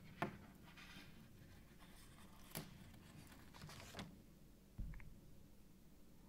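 Faint handling sounds of a Casio A168W-1 watch and its stainless steel link bracelet being picked up off a table and held: a few sharp clicks and soft rustles, then a low thump about five seconds in.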